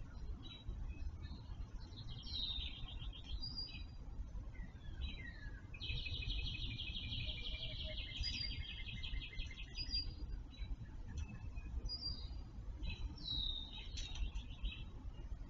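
Songbirds singing: short high phrases with a falling note, and one long fast trill lasting about four seconds in the middle, over a low steady rumble.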